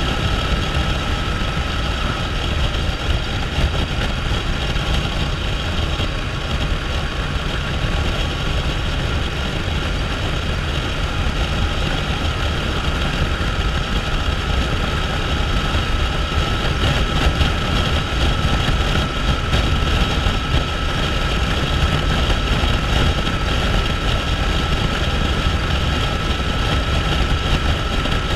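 Motorcycle cruising steadily at highway speed, about 65 mph, on wet pavement: steady engine drone with a thin steady whine, mixed with wind rush and tyre hiss on the wet road.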